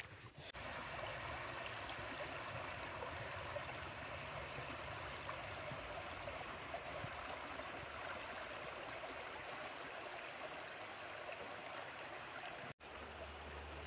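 A creek running: a steady rush of flowing water that cuts off suddenly about a second before the end.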